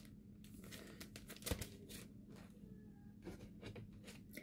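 Faint rustling and light clicks of paper and cardstock being handled, with one soft knock about a second and a half in.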